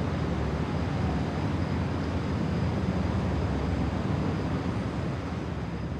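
Steady low background rumble of distant road traffic, fading out near the end.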